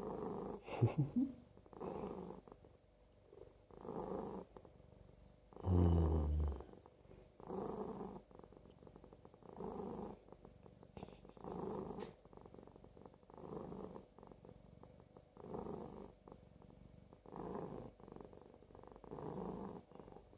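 A domestic cat purring in soft, even pulses about every two seconds, one with each breath; the pulse about six seconds in is louder.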